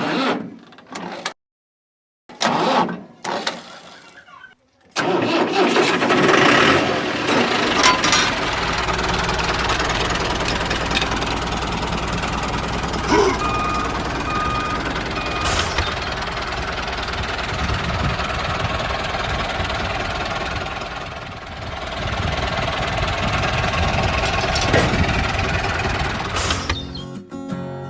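A small motor starts about five seconds in after a few short, choppy sounds, then runs steadily, and stops near the end as guitar music comes in.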